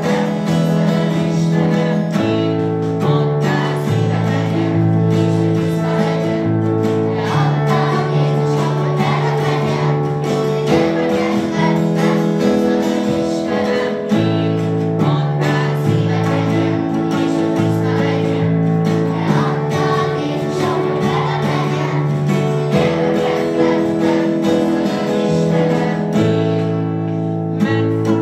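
A song: voices singing to guitar accompaniment, with the chords changing every second or two.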